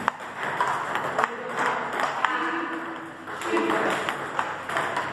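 Table tennis rally: the celluloid-type ball clicking sharply off rubber paddles and bouncing on a Stag Roll-On table, a hit or bounce about every half second.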